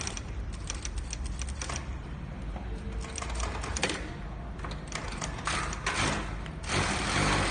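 XC 8700D single-needle industrial sewing machine stitching leather in short runs, a rapid clatter of needle strokes, pausing briefly in the middle and picking up again near the end.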